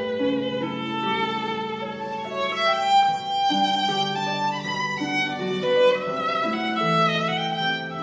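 Background instrumental music: a melody of held notes over sustained lower notes.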